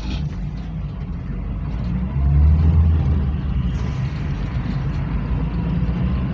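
Volkswagen Kombi van driving, heard from inside the cab: a low engine drone with road noise, growing louder about two seconds in.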